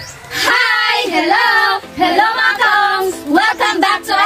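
Young girls singing together in long held notes that bend in pitch.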